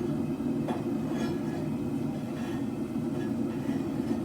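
Propane forge burners running steadily with a constant low rushing sound, with a few faint light clicks.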